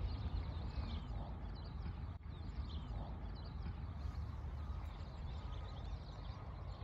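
Birds chirping and singing in many short, high notes over a steady low rumble of wind on the microphone.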